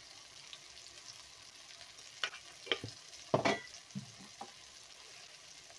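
Cluster beans, onion and tomato frying in oil in a kadai, giving a faint steady sizzle. Several short knocks and clicks come between about two and four and a half seconds in.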